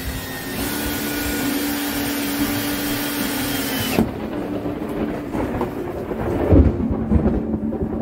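Ryobi cordless drill running steadily at the wooden stud, then cutting off suddenly about four seconds in. Irregular low rumbling and knocks follow.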